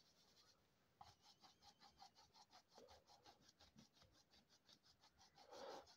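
Near silence, with a faint, rapid scratching of a bristle brush mixing oil paint on the palette.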